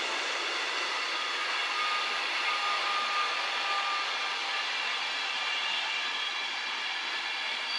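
Passenger coaches rolling away along station tracks: a steady rush of wheel-on-rail noise that slowly fades, with faint high squealing tones from the wheels over the middle seconds.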